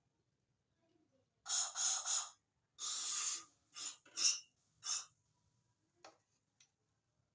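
Short hissing spray bursts in throttle-body cleaning: three quick bursts about a second and a half in, then four more over the next three seconds, with a couple of faint clicks near the end.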